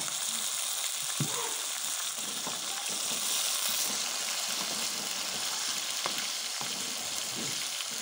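Hot oil sizzling steadily around fried onions and freshly added tomato paste in a metal pot, as a wooden spatula stirs and scrapes through it. The spatula knocks lightly against the pot a few times.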